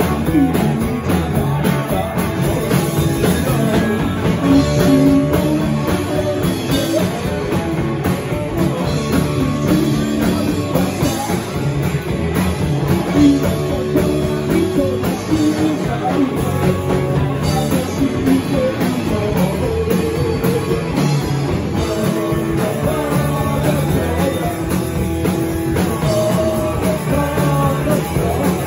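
Live rock and roll band playing: electric guitar, electric bass and a Pearl drum kit, with a lead singer singing over them.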